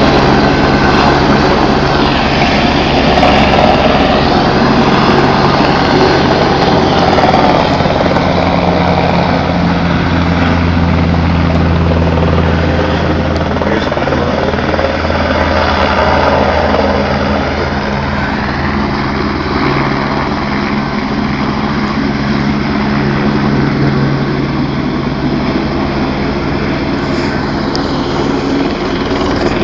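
Light aircraft running close by: a loud steady engine and propeller drone whose low tones shift in pitch a few times.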